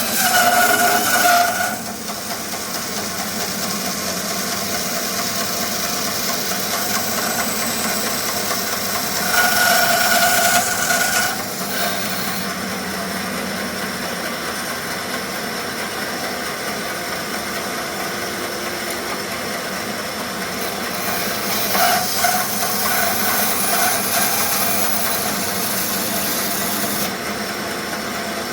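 Band saw running and cutting through thick wenge hardwood, a steady loud noise with a constant hum. It grows briefly louder and takes on a steady pitched tone near the start, around ten seconds in, and again a little past twenty seconds.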